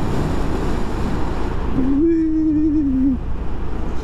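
BMW R1200C motorcycle riding along: the boxer twin's low steady drone under heavy wind rush on the microphone. A short wavering hum sounds about halfway through.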